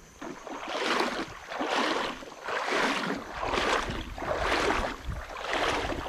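Legs wading through shallow river water, a sloshing swish with each stride, about one step a second.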